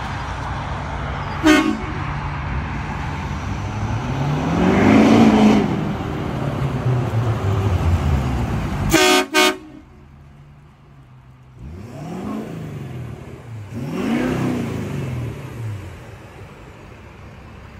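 Ford F-450 Super Duty pickup's diesel engine revving up and falling back three times, with a short horn toot about a second and a half in and a quick double toot about nine seconds in.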